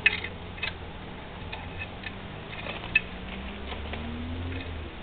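Sharp metal clicks and taps from hand tools working at a Piaggio Ciao moped's engine mounting, a few separate ones, the loudest right at the start and another about three seconds in. A faint low hum rises slowly in pitch underneath in the second half.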